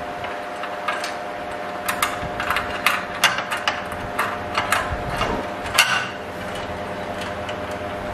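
Irregular small metal clicks and knocks as a featherboard's metal bars are slid into and seated in the slot of a table saw rip fence, over a steady faint hum.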